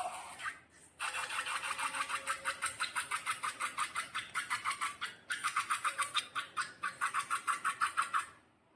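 Slime being squished and kneaded by hand, making rapid, rhythmic sticky clicks and pops at about four to five a second. There are two runs, with a short break about five seconds in.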